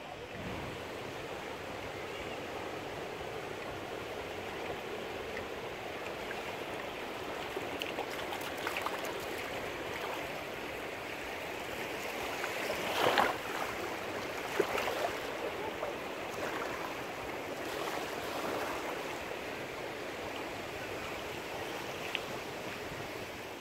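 Sea surf on a beach: a steady rush of waves, with a louder surge of water about halfway through and a few faint clicks.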